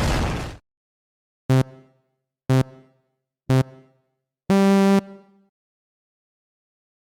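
Synthesized countdown beeps from a sound-effect pack: three short beeps a second apart, then one longer, higher beep, the pattern of a race-start countdown. Before them, a loud noisy sound effect cuts off suddenly.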